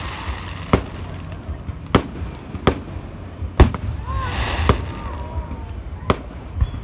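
Aerial fireworks going off: about seven sharp bangs from shells bursting, spaced unevenly over a few seconds, with the loudest a little past halfway.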